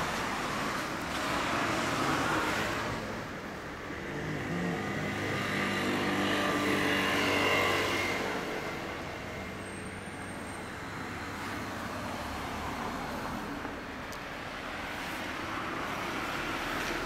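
Road traffic: cars passing one after another on the street, with a loud pass at the start and another, with an engine hum, a few seconds later, then quieter traffic rising again near the end.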